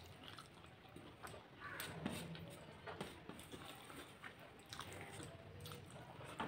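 Faint close-up chewing and biting of a mouthful of rice and vegetables eaten by hand, heard as a scatter of short, soft clicks and squishes.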